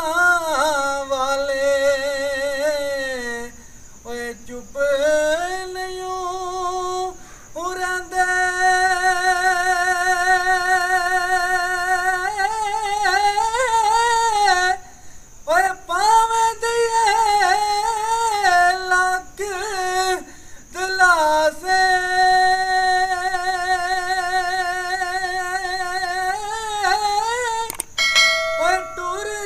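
A man singing a Punjabi Sufi kalam unaccompanied, in the traditional style with a hand cupped over his ear. He holds long, high notes with a wavering, ornamented pitch, pausing briefly for breath between phrases.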